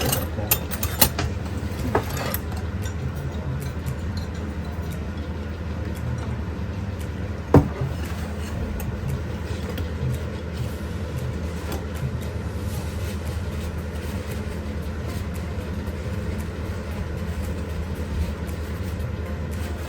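Steady low machine hum, like a small motor running, with a few light clicks near the start and one sharp click about seven and a half seconds in.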